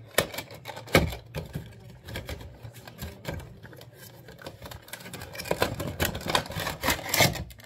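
Cardboard Funko Pop box being opened by hand: the top flap pried open and the clear plastic insert slid out. A run of scrapes, taps and crackles, with a sharp knock about a second in and denser crackling near the end.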